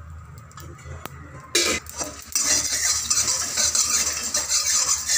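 A steel spatula stirring and scraping coriander seeds, dried red chillies and whole spices as they dry-roast in a steel pan. A few light clicks at first, then from about halfway a steady scraping hiss as the seeds are pushed around the pan.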